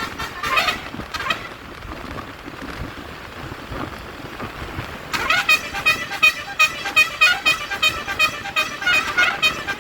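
Basuri multi-tone "telolet" bus horn playing a fast tune of short notes, breaking off about a second in. Traffic noise fills a few seconds, then the horn tune starts again about five seconds in and keeps going.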